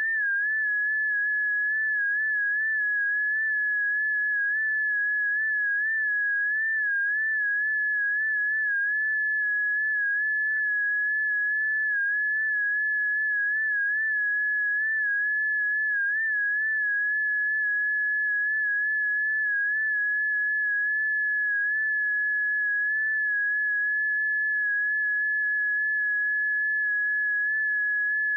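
A continuous electronic early-warning tone from a seismograph monitoring feed, a single high pure note whose pitch wavers slightly, most in the first ten seconds, then holds steadier. A change in this tone is meant to signal an event such as an earthquake or eruption.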